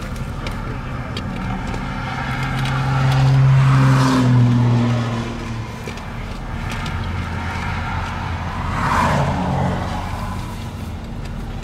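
Two vehicles pass by on a road, about four and nine seconds in. Each time the engine and tyre noise swells and fades, and the first drops in pitch as it goes by. A steady low engine hum runs underneath.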